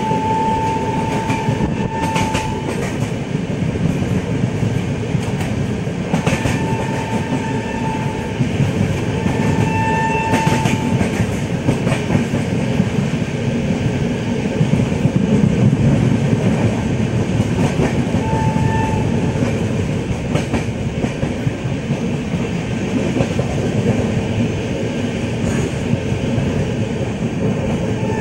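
Passenger train running along the track, heard from inside a coach at an open window: a steady rumble of wheels on rails with scattered clicks over rail joints. A high whistling tone comes and goes several times.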